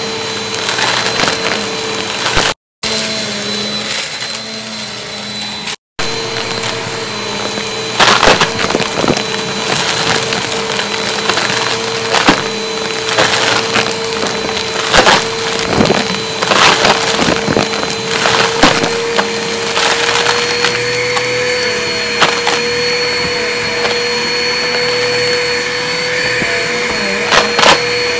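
Upright vacuum cleaner running on carpet with a steady motor whine. Beads, sequins and coins clatter and rattle as they are sucked up, many sharp clicks over the hum.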